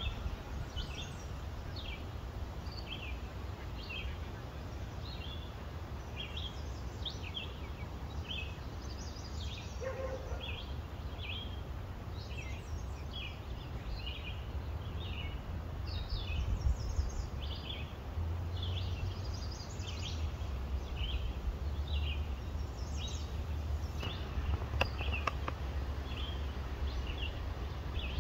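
Birds chirping: short high calls repeating one or two a second, over a steady low rumble.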